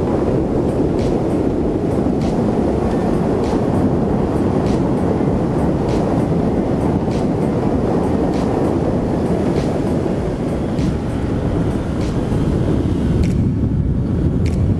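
Steady wind rush over the microphone with scooter engine and road noise while riding a Yamaha NVX 155 at road speed. A run of faint ticks, about two or three a second, sits on top. The rush thins a little in its upper part near the end.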